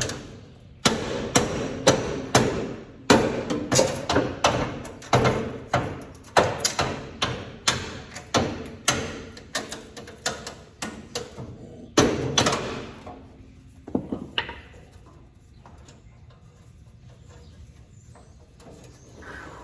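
A hammer striking metal again and again, about two blows a second for some twelve seconds, with one last blow a little later.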